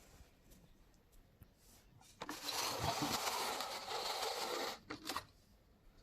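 Small die-cast pullback toy car whirring for about two and a half seconds as its wheels turn its wind-up spring motor, then a single click.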